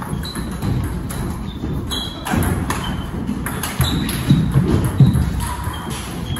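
Table tennis rally: the plastic ball clicking off rubber-faced paddles and bouncing on the table top at an irregular pace, some hits with a short high ping, over players' shoes shuffling and thudding on the floor.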